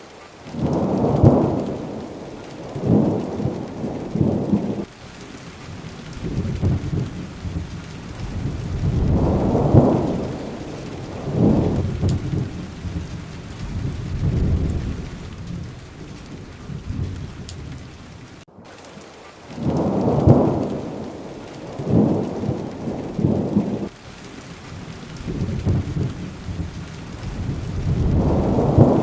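Steady rain with rolling thunder rumbling again and again, low and swelling every few seconds, with a momentary dropout about two-thirds through.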